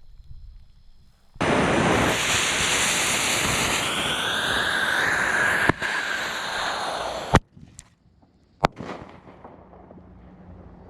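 1-inch artillery shell firework heard from close to its mortar tube. A hissing fuse burns for about six seconds, then a sharp bang launches the shell and cuts the hiss off suddenly. Just over a second later a second bang marks the shell breaking, followed by a short fading tail.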